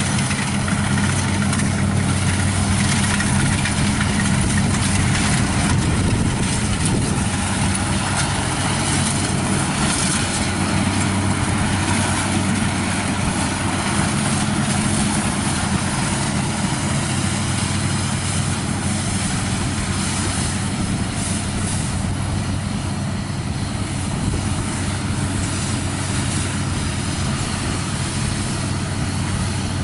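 Diesel engines of Kubota rice combine harvesters running steadily while cutting and threshing rice: a constant low engine hum with a broad rushing noise over it.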